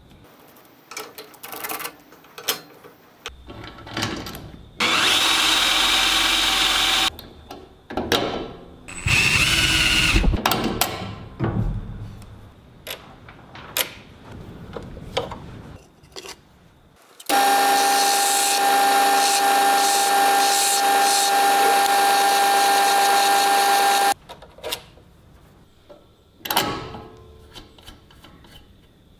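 Power tool in a metal workshop running in three bursts: two short runs, then a steady run of about seven seconds with a high steady whine. Between the runs come scattered clicks and clatter of small metal parts being handled.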